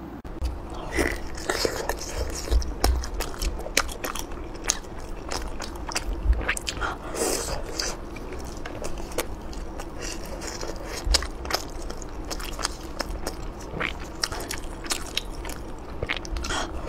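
Close-up eating sounds: biting and chewing soft fish cake from skewers in chili sauce, with many quick wet clicks and smacks of the mouth and a few longer sucking slurps.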